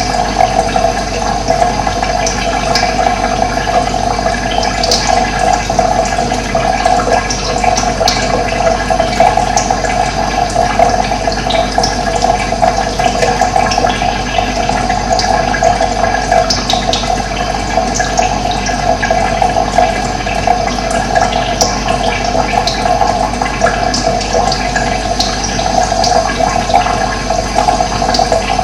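Running water flowing in a steady, unbroken rush.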